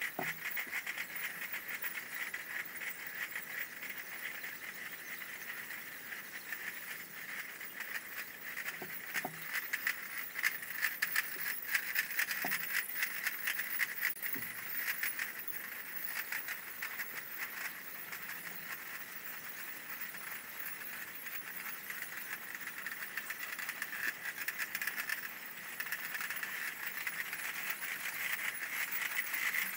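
Piccolos and drums of Basel carnival cliques marching at the Morgestraich. A steady high piccolo tone sits over a dense rattle of snare-drum strokes, louder about ten to fifteen seconds in.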